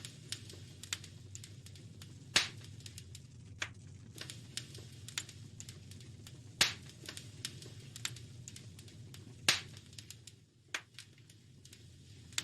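Wood fire crackling in a fireplace: irregular sharp snaps and pops, three of them louder, a few seconds apart, over a steady low rumble.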